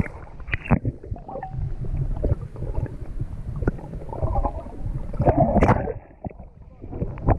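Water splashing and sloshing right at the microphone as the camera dips in and out of the surface. A low rumble runs underneath, with sharp splashes here and there and the loudest burst of splashing about five to six seconds in.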